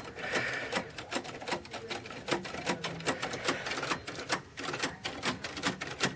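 Royal manual typewriter being typed on: a quick, uneven run of sharp key and typebar strikes, several a second.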